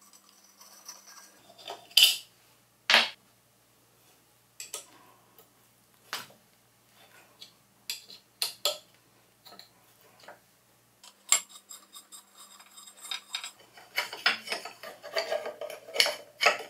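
Scattered small metal clicks and clinks of a hex key working the screws of a mini lathe's steel end cover panel, with sharp ticks of metal on metal. There are two louder clicks early on and a busier run of small clinks near the end.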